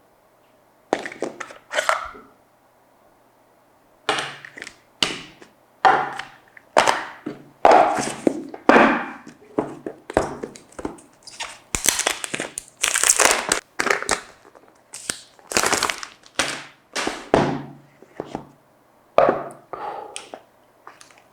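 Phone packaging being handled and opened: a quick run of short rustles, clicks and knocks of cardboard box and wrapping, in bursts separated by brief pauses, with a short gap about a second in and another around three seconds in.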